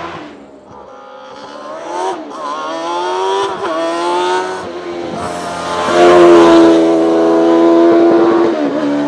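Suzuki GSX-R 1300 Hayabusa inline-four motorcycle engine in a small hillclimb race car, revving hard. Its pitch climbs and drops sharply several times as it changes gear, growing louder as the car approaches and loudest about six seconds in.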